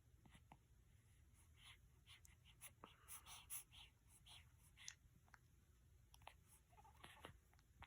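Near silence with faint scattered rustling and a few soft clicks, busiest about three to four seconds in.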